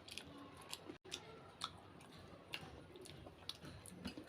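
A person chewing samosa: faint, irregular crunches and mouth clicks.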